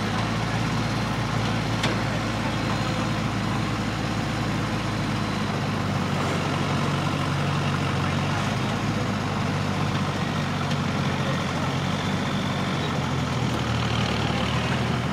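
Engine of an off-road truck trial prototype running steadily as it crawls over a dirt mound, its pitch shifting a little now and then.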